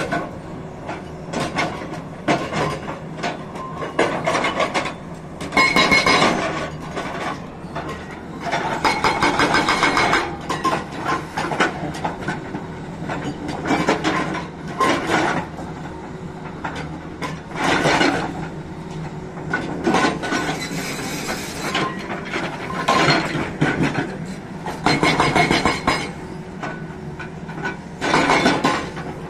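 Hydraulic rock breaker on a Tata Hitachi excavator hammering rock in repeated bursts of rapid blows, each lasting a second or two. The excavator's engine runs steadily between the bursts.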